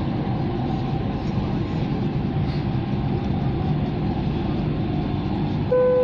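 Dubai Metro train carriage interior while the train runs: a steady rumble of the train in motion. Near the end a clear electronic chime note starts, the onboard chime that comes before the next-station announcement.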